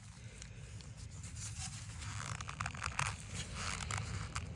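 Handling noises as a coaxial cable connection is checked by hand: scattered rustling and light clicks over a steady low rumble.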